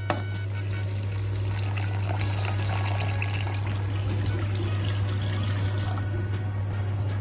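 Water pouring in a steady stream into a pan of fried masala, splashing into the thinning kulambu gravy, over a steady low hum. A metal spoon clinks once against the pan just at the start.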